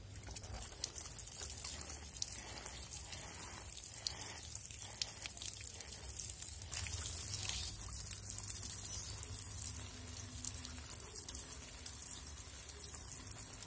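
Water from a watering can's sprinkler rose showering onto soil and the leaves of a newly planted taro, a steady patter of many small drops.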